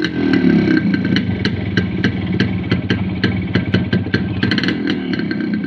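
Yamaha RX100's two-stroke single-cylinder engine running at low revs through a muffler altered with silver foil, with frequent sharp irregular ticks over the engine note.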